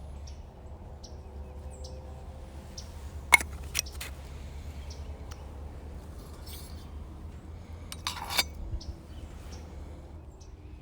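Sharp metallic clinks of camp cooking gear: two about three and a half seconds in and a short cluster near eight seconds, over a steady low rumble, with faint bird chirps in the background.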